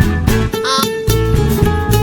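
Fast strummed guitar music with a bass line, played to a quick even rhythm, with a short rising slide about two-thirds of a second in.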